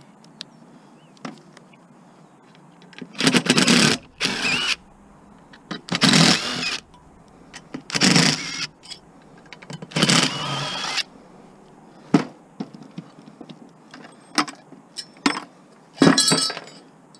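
Cordless DeWalt driver running in short bursts of about a second as screws are backed out of a projection TV tube's metal mounting bracket: five runs between about 3 and 11 seconds in and one more near the end. Light clinks of metal parts being handled come between the runs.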